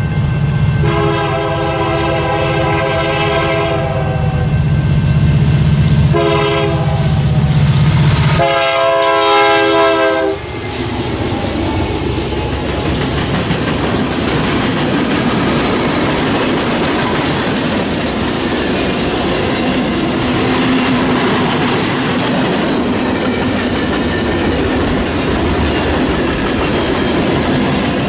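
Union Pacific freight train's GE Dash 9 diesel locomotives blowing the air horn as they approach and pass: the end of one long blast, another long blast, a short one and a final long one ending about ten seconds in, over the deep drone of the engines, which drops away just before the last blast ends. After that, the cars of the mixed manifest rolling by steadily, wheels clicking over the rail joints.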